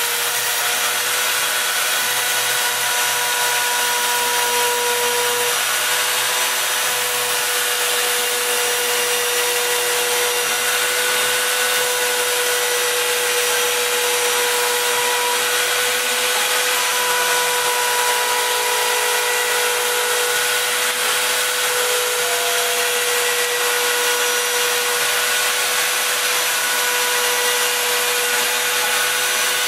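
Homemade gantry CNC router cutting a sheet: the spindle runs steadily with its bit routing through the material, while motor whines shift and come and go as the gantry moves along the cut.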